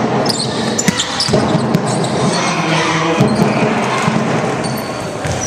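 Basketball game play: a ball bouncing on the court with sharp knocks, over a background of crowd and player voices.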